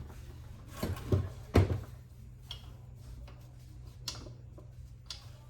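A few knocks and clunks from parts of a key cutting machine being handled and turned by hand, loudest about a second and a half in, followed by a few fainter taps, over a steady low hum.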